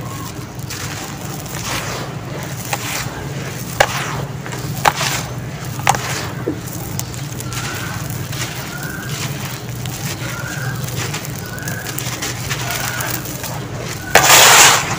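Dry sand and cement lumps crumbled and rubbed between hands in a tub: gritty crunching with a few sharp cracks, and a loud harsh rush of crumbling near the end.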